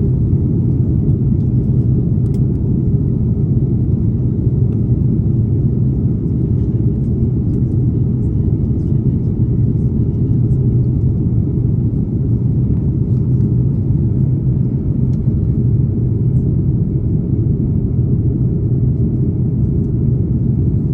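Steady low rumble inside the cabin of an Airbus A330neo, with engine and air noise at an even level.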